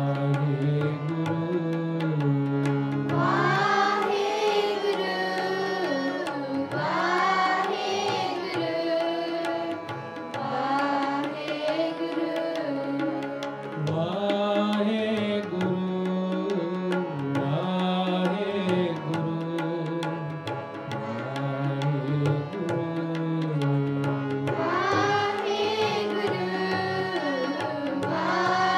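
Sikh kirtan: harmonium and tabla accompanying a singer in a devotional hymn. The harmonium holds steady chords throughout, the tabla keeps a rhythm, and the voice comes in with long, ornamented sung phrases several times.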